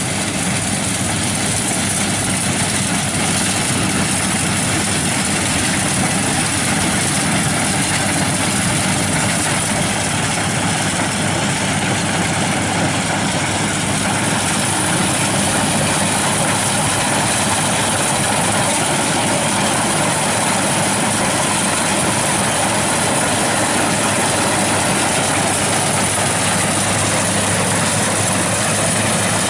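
Kubota DC-95 combine harvester's diesel engine running steadily as it cuts rice: a loud, even engine noise with a constant low hum.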